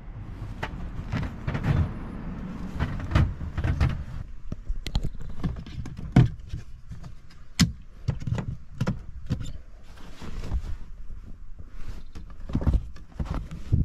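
Scattered clicks, knocks and rustling as the fittings and bedding inside a camper van are handled, with handling noise of a handheld camera. The sharpest knocks come about six and seven and a half seconds in.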